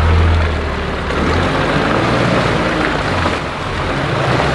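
Four-wheel-drive vehicle engine running as it drives a dirt track, a steady low drone whose pitch shifts a couple of times, over a hiss of road and wind noise.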